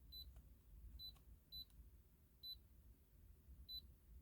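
Faint short, high electronic beeps from a handheld OBD-II scan tool, five of them at uneven intervals, as its buttons are pressed to clear a stored P0301 cylinder 1 misfire code.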